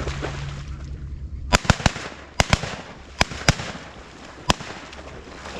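A volley of shotgun shots, about eight sharp reports in three seconds, several fired in quick succession, as hunters shoot at incoming ducks over the decoys.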